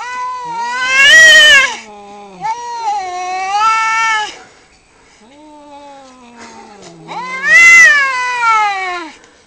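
Two male cats caterwauling at each other in a territorial standoff: long, wavering yowls, some high and some lower and falling, overlapping and trading back and forth. They are loudest about a second in and again near the end.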